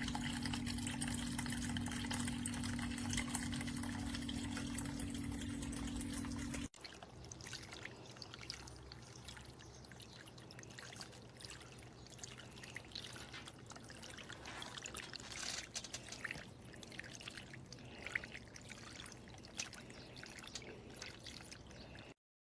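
Water trickling and splashing in a small pet water fountain, with a steady low hum in the first several seconds. After a cut about seven seconds in, a quieter, uneven trickle goes on, then the sound stops abruptly near the end.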